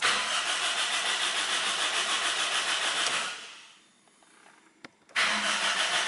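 Car engine being cranked by the starter motor, pulsing evenly for about three seconds without firing, then a click and, after a short pause, a second crank near the end that also does not catch. The engine will not start even with fresh gasoline added to the tank.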